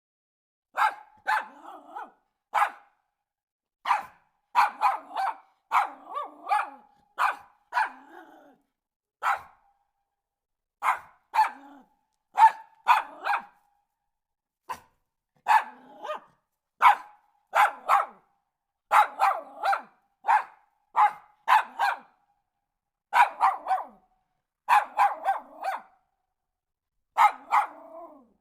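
A dog barking repeatedly: short, sharp barks, some single and some in quick runs of two or three, with brief pauses between.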